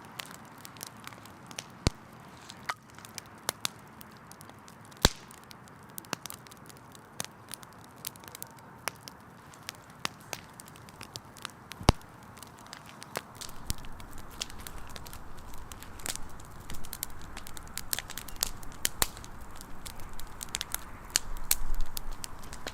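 Firewood burning in a campfire, crackling with frequent sharp pops and snaps over a soft hiss. About halfway through a low rumble comes in and builds, strongest near the end.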